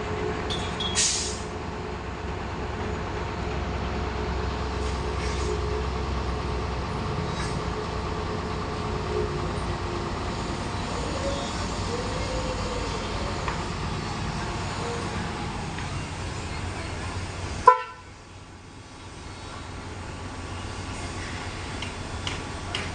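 Backhoe engine running steadily, a low drone with a steady whine over it. About 18 s in a sharp click cuts through, and the sound drops off briefly before building back.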